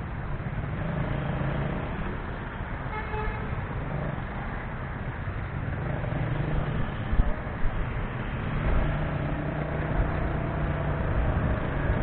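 Road traffic with vehicle engines running, and a short car horn toot about three seconds in.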